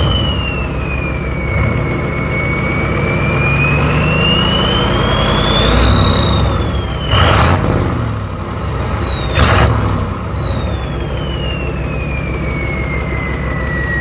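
Borg Warner S257 SX-E turbocharger on a Ford 7.3 IDI V8 diesel whistling over the engine's rumble. The whistle's pitch climbs and falls as the turbo spools up and down while driving. Two short rushing noises break in, about seven and nine and a half seconds in.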